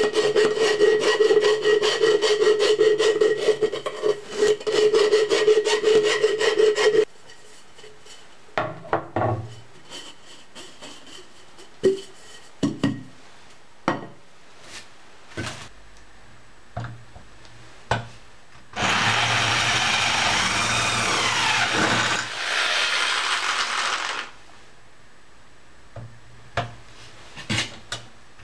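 Rapid rasping strokes on a thin aluminium container, with the metal ringing a steady tone, for about seven seconds. Then come scattered knocks and clatter of metal parts and tools on a workbench. Past the middle there is a second loud stretch of scraping noise, about five seconds long, whose pitch swings up and down.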